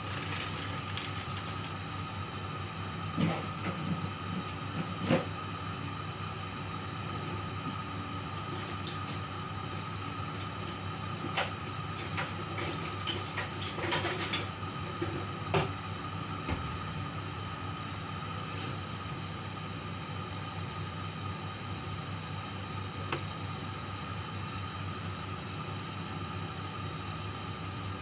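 A steady hum with a faint constant whine, and scattered light knocks and clicks of cookware on a gas stovetop, clustered a few seconds in and again around the middle.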